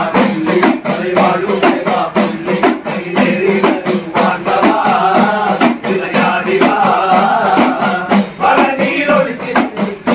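Men singing a chinthu pattu devotional song together, with a steady quick beat on small hand drums.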